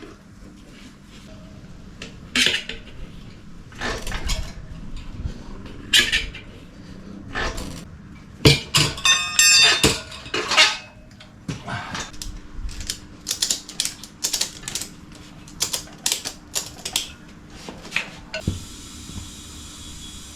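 Metal tyre levers clinking, knocking and scraping against a motorcycle wheel rim as a tyre is worked onto the rim by hand, with a quick rattle about halfway. Near the end a steady hiss of air starts as the tyre is inflated to seat the bead.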